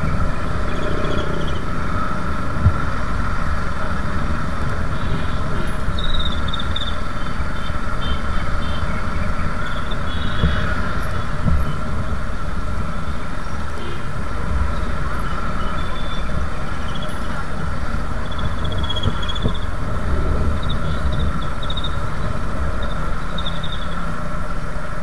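Traffic noise heard from a motorbike riding in dense city traffic, picked up by an action camera's built-in microphone: a steady low rumble of engines, tyres and wind, with a thin steady whine above it and brief higher-pitched sounds scattered through.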